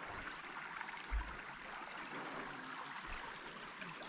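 Small clear forest creek flowing with a steady rush of water. A brief low thump comes about a second in.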